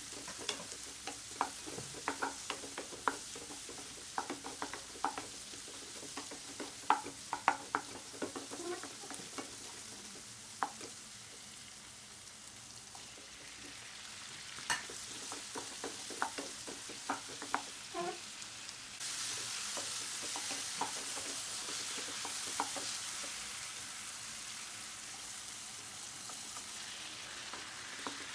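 Shallots, onion, red capsicum and tomato frying in a nonstick pan, stirred with a wooden spatula that scrapes and clicks against the pan. About two-thirds of the way in the sizzle grows louder and steadier.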